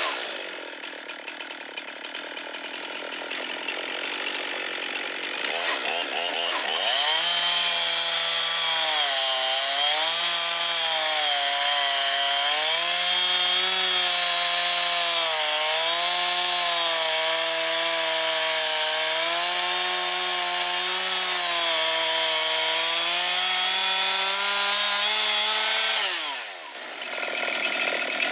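Two-stroke gas chainsaw in an Alaskan chainsaw mill, ripping lengthwise along a log at full throttle. Its engine pitch wavers up and down as the load in the cut changes, then falls away quickly near the end as the throttle is released at the end of the cut.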